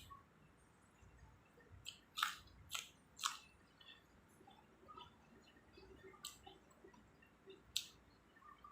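Close-up eating sounds: a person chewing a mouthful of curry rice, with soft wet mouth clicks and smacks. There are a few sharper snaps, three between about two and three and a half seconds in and one near the end.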